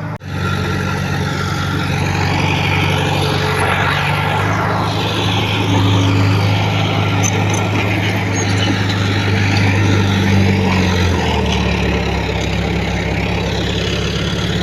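Heavy earthmoving machinery's diesel engine running steadily under work, its note shifting lower about eleven seconds in.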